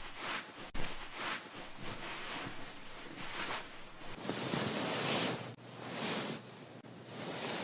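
Hair being washed by hand at a salon basin: fingers scrubbing through wet hair and scalp. It gives a rustling noise that swells and fades with each stroke, with a longer, louder stretch about two thirds of the way through.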